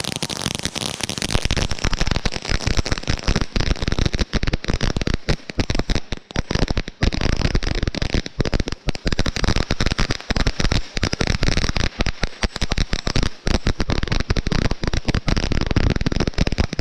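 Bulldog Fireworks 'Blue Fish' ground fountain burning: a steady hiss of the spark jet under dense, rapid crackling.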